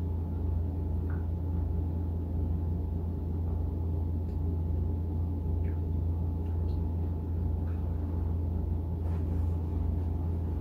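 Steady low hum with a few faint, scattered mouth and chewing clicks from someone eating a greasy, cheesy calzone.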